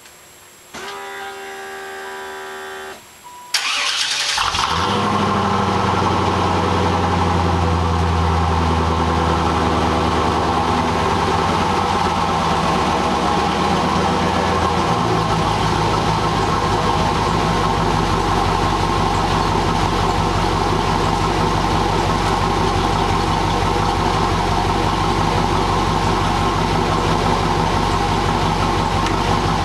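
1995 Buick Roadmaster's LT1 V8, heard from beneath the car through a Jegs cat-back exhaust, on its first start-up. A steady whine lasts about two seconds, the engine catches suddenly about three and a half seconds in, and it runs at a fast idle that steps down to a lower, steady idle about fifteen seconds in.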